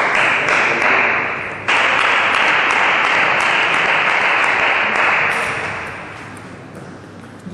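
Crowd of spectators applauding, a dense patter of many hands clapping that fades out over the last couple of seconds.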